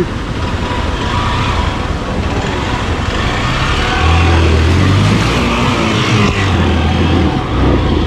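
Hero Xpulse 200's single-cylinder engine running as the motorcycle rides slowly through a rocky river, over the rush of the river water. The engine gets louder about halfway through for around three seconds, then drops back.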